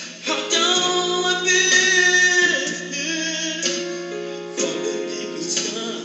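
A man singing a gospel song unaccompanied, holding long notes that break off and restart every second or two.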